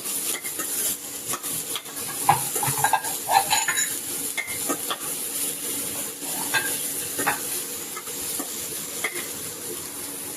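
Chopped carrot and onion sizzling in hot oil in a kadhai while being stirred, the utensil scraping and clicking against the pan.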